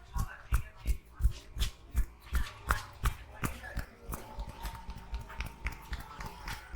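A barber's hands striking rhythmically during a head massage: percussive massage tapping at about three strikes a second, softer in the second half.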